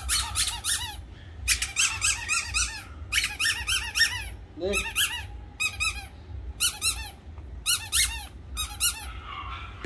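Rapid high-pitched squeaks in about eight short bursts, each burst a quick run of chirp-like notes, with brief gaps between them.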